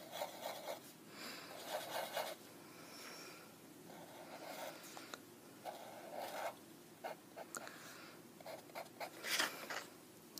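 Felt tip of a Sharpie fine-point marker scratching across paper in a series of strokes: a few longer strokes at first, then quick short flicks and dabs.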